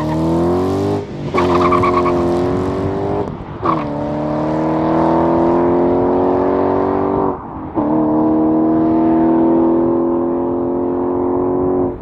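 Ford Mustang GT's 5.0-litre V8 through a twin 3-inch exhaust with long-tube headers and high-flow cats, accelerating hard through the gears. The engine note climbs, then drops for an upshift about a second in, again around three and a half seconds and again near seven and a half seconds.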